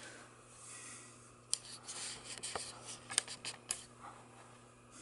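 Handling noise from a person moving at an electronic organ console: clothing rustling with a cluster of sharp clicks and rubs from about a second and a half in until nearly four seconds, over a faint low steady hum.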